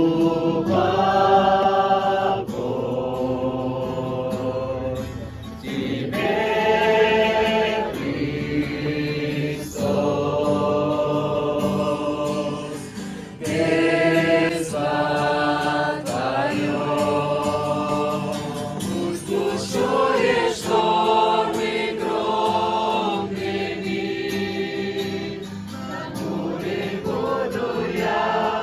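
Choir singing a slow sacred piece in long held phrases of a few seconds each.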